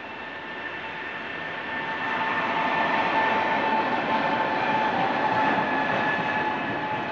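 EP20 electric locomotive pulling into the station past the listener, its steady high electric whine over the rumble of the train growing louder about two seconds in.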